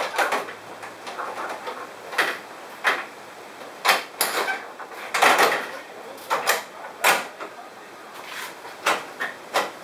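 The retaining tabs of a plastic Chevy Silverado grille snapping into their slots on the truck's front end as the grille is pressed into place. It gives a series of sharp clicks and knocks at uneven intervals, with plastic rattling between them.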